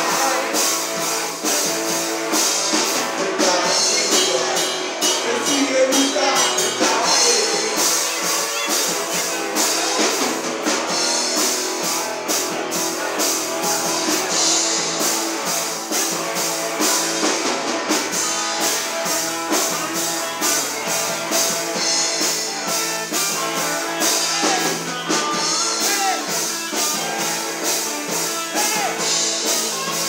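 Live rock band playing a song: a drum kit keeping a steady beat under electric guitars, with a singer. There is almost no deep bass.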